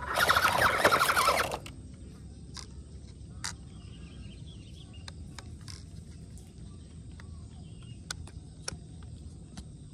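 Toy RC truck's small electric motor and gearbox running with its wheels grinding over gravel in a loud rasping burst for about a second and a half, then stopping. After that only a faint outdoor background with a few scattered light clicks.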